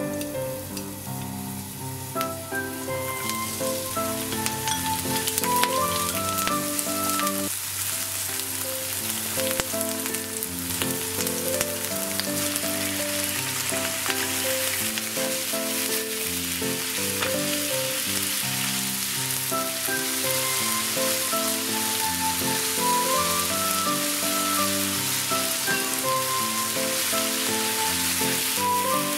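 Oil sizzling in a hot frying pan as julienned ginger, then sliced lamb and scallions, are stir-fried and stirred with chopsticks; the sizzle builds a few seconds in and then holds steady. Background music with a melody plays throughout.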